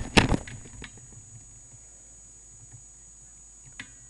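Moderated BSA R10 .22 air rifle firing: a sharp report right at the start, followed a fraction of a second later by a second sharp knock, then a single faint click near the end.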